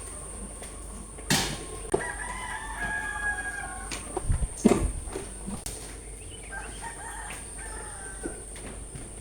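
A rooster crowing: one long call about two seconds in and a fainter second call near the end. A few sharp knocks come in between, the loudest about halfway through.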